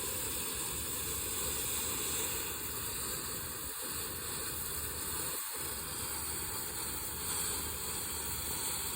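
Small fireworks burning with a steady hiss.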